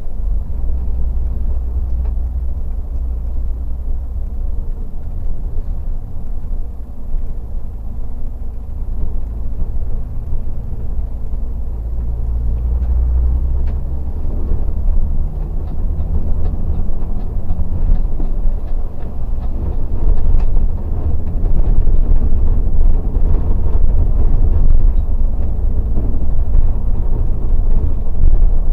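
Mercedes-Benz O500RS 1836 coach cruising, heard from inside the front of the cabin: a steady low drone of diesel engine and road rumble. It grows louder about two-thirds of the way through.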